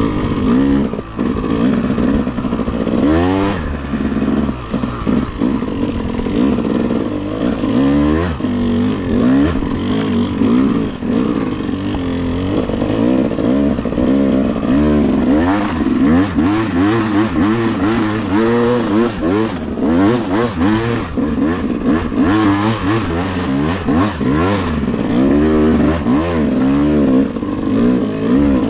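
Dirt bike engine revving, its pitch rising and falling again and again with the throttle as the bike is ridden, with a few sharp knocks from the rough ground.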